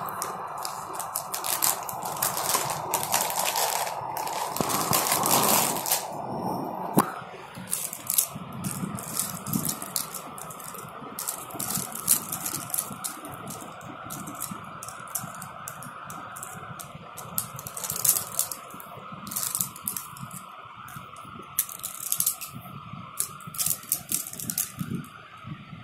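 Clear plastic packaging crinkling and rustling as it is handled, giving way about seven seconds in to scattered clicks and light clatter of plastic ballpoint pens knocking together. A faint steady tone runs underneath.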